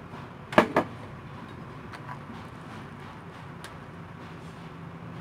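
Plastic rice paddle knocking and scraping against a metal pot while scooping out cooked rice: two sharp knocks a little after half a second in, then a few light ticks over a low steady hum.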